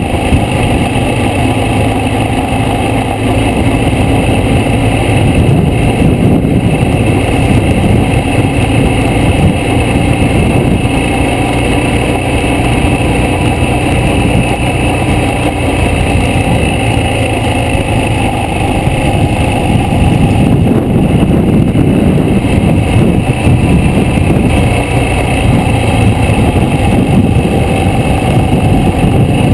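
Motorcycle riding along at a steady cruising speed, its engine running under a loud, steady rush of wind noise on the bike-mounted microphone.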